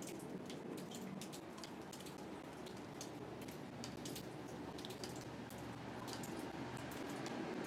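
Light rain: irregular drops tapping and dripping on surfaces, over a steady low background rumble.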